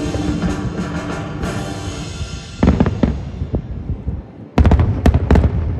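Fireworks shells bursting with sharp bangs over the show's music. A held musical chord gives way about two and a half seconds in to a few bangs, then to a quick, louder volley of about four bangs near the end.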